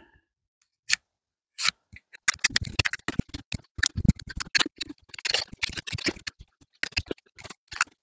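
Victorinox Swiss Army Camper pocketknife blade whittling a Y-shaped branch: an irregular run of short scraping cuts, thickest in the middle.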